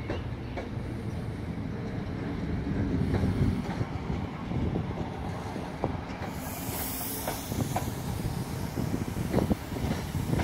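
Regional electric multiple unit trains rolling slowly through a station: a steady low rumble with the wheels clicking over rail joints, and a hiss that comes up about six seconds in.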